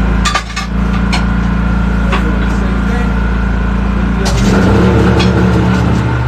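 Machinery running with a steady low hum, under sharp metal clicks and knocks from work on the tire and rim. About four seconds in, the hum changes pitch and grows a little louder.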